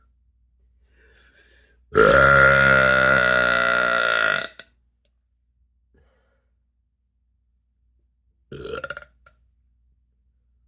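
A person's long, loud belch about two seconds in, held for about two and a half seconds, then a short, quieter, fluttering belch near the end. It is trapped air from drinking ginger ale finally coming up.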